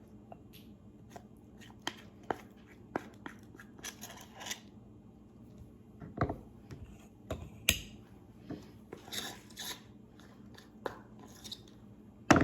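Utensil tapping and scraping against a measuring cup and mixing bowl as honey is added to the ground spices: a scattering of sharp little clicks, with short scraping stretches about four seconds in and again around nine to ten seconds.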